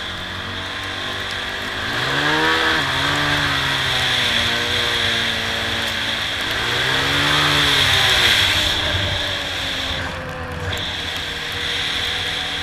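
Honda TRX450R quad's single-cylinder four-stroke engine under way. It revs up about two seconds in, runs steadily, then revs up and eases off again in the middle and settles lower near the end.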